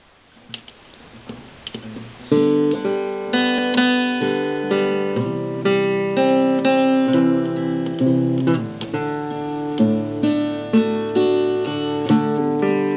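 Acoustic guitar strummed in a steady rhythm, starting about two seconds in after a few faint handling clicks.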